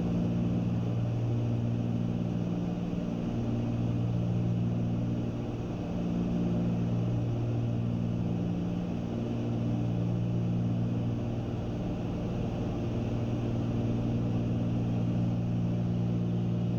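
Cabin drone of a twin-engine Cessna 310Q in cruise flight: the two six-cylinder engines and propellers running steadily, with a slow throb that comes and goes about every two seconds.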